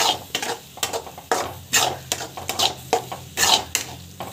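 Spatula scraping and stirring egg bhurji around a pan, a quick, uneven run of scraping strokes about two to three a second.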